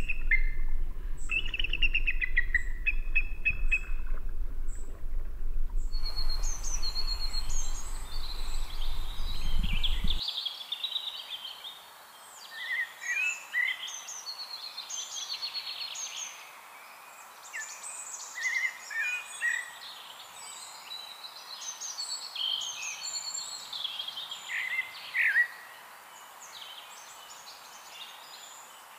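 Several songbirds singing, a string of short chirps and phrases. They start over a steady low rumble that cuts off suddenly about ten seconds in; after that the birdsong is heard alone, quieter.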